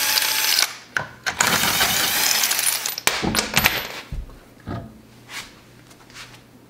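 Cordless impact wrench hammering lug nuts loose on a car wheel, in two bursts: one at the start and a longer one from about a second in to about three seconds. Sharp metallic clicks and knocks follow as the nuts and the wheel are handled.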